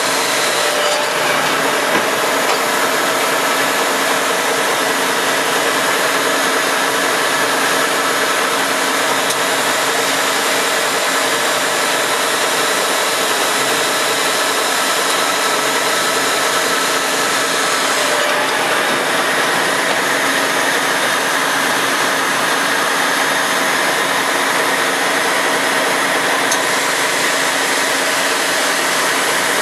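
Acme-Gridley RA6 six-spindle automatic screw machine running, a steady mechanical whir with several steady tones from its spindles and gearing.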